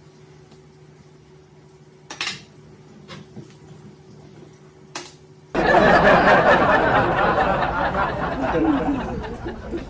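A few light clicks of chopsticks against a bowl over a faint steady hum. Then, about halfway through, a sudden loud rushing noise runs for about four seconds and fades away.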